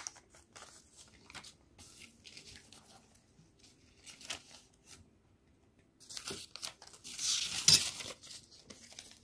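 Paper rustling and crinkling as pattern-paper sheets are handled, in short scattered bursts with a pause in the middle and a longer, louder rustle near the end.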